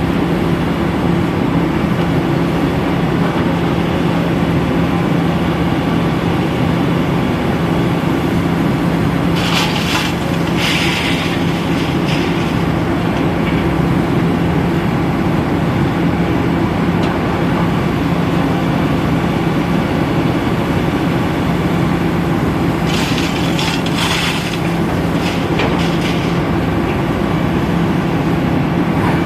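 Sany excavator's diesel engine running steadily and loudly with an even low drone, as it works loading a dump truck. Twice, around ten seconds in and again near the end, brief bursts of higher-pitched clattering noise rise over the drone.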